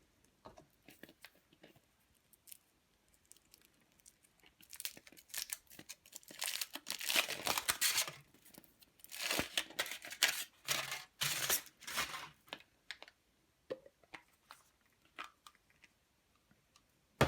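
Foil wrapper of a giant Kinder Surprise egg being torn and crinkled off by hand: a few small crackles, then several seconds of dense rustling and tearing in bursts, then scattered small crackles again.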